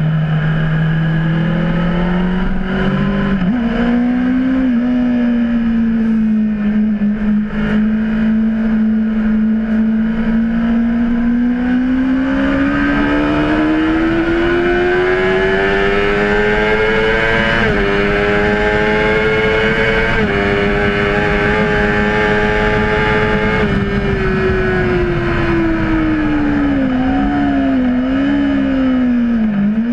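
Honda CBR600RR's inline-four engine under way on a wet track. The revs climb steadily over several seconds with brief steps at two upshifts, then fall as the bike slows, with quick blips on downshifts near the end. A constant rushing noise runs underneath.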